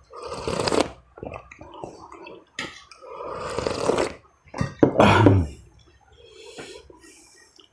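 Loud slurping and sucking of beef rib broth and meat off the bone, close to the mouth, in three long bursts; the loudest, about five seconds in, has a low, throaty rumble.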